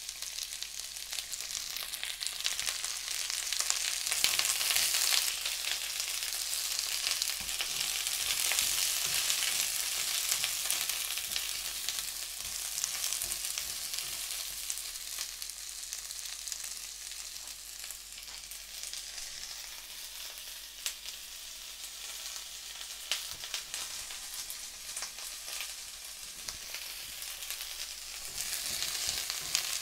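Diced Hokkaido pumpkin sizzling in hot olive oil in a frying pan. The crackling sizzle eases off somewhat in the middle and picks up again near the end.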